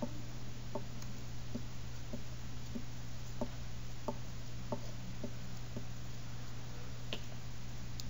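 A glue stick rubbed back and forth over a newspaper cutout, making a short tick with each stroke, about one and a half a second, for roughly five seconds. A single sharper click follows near the end, all over a steady low hum.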